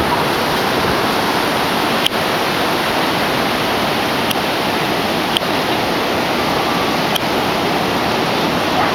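Ocean surf breaking on a beach: a loud, even rushing noise, with a few faint clicks.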